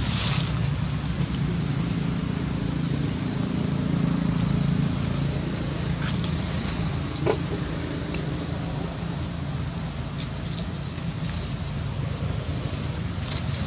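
Steady low rumble of a running engine, with one brief sharp squeak about seven seconds in.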